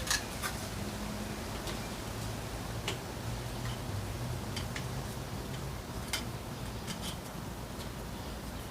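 Light, sharp clicks and ticks at irregular intervals, roughly one every second, over a faint low hum.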